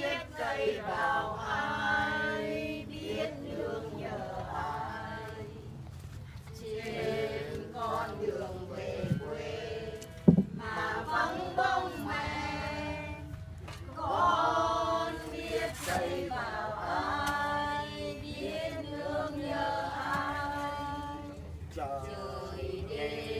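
A group of mourners singing together without accompaniment, men's and women's voices mixed, with a single thump about ten seconds in.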